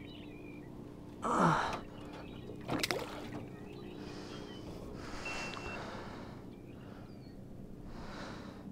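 A person's loud breaths: a sharp exhale about a second in, falling in pitch, and another near three seconds, then softer breathing, over a steady low hum.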